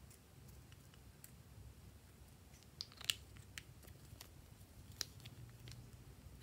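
Faint scattered clicks and crackles of a plastic glitter glue tube being handled and squeezed over slime, ending on one sharp, louder click.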